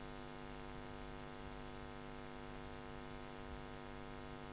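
Faint, steady electrical mains hum from the microphone and sound-system chain, a stack of many even tones that holds unchanged.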